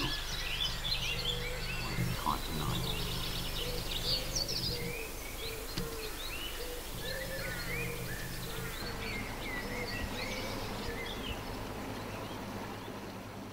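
Songbirds singing all around, many short chirps and whistles overlapping, with a repeated low note about twice a second through the middle. Under them runs a low steady engine hum from a passing narrowboat's diesel.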